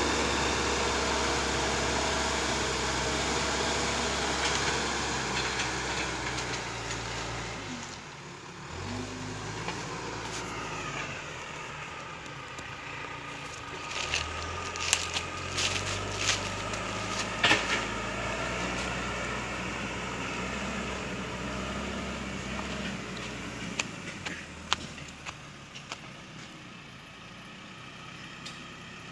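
John Deere 310E backhoe loader's diesel engine running as it works, its speed rising and falling under load. Several sharp metallic clanks and knocks come around the middle and again later.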